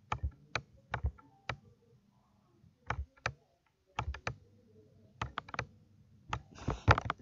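Irregular sharp clicks of a computer mouse while a word is handwritten stroke by stroke in an on-screen annotation. There are short pauses in the middle and a denser run of clicks near the end.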